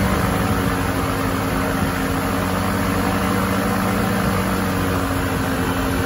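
Microlight trike's engine and propeller running steadily, with no change in pitch, heard from the pilot's seat.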